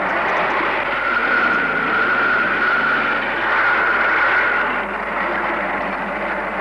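Steady mechanical whirring of a small motor, with a high whine that holds from about a second in until nearly five seconds in.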